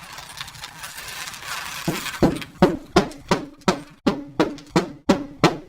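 A hissing rustle, then from about two seconds in a run of about eleven quick, even hammer taps on the plastic Etch A Sketch case, roughly three a second.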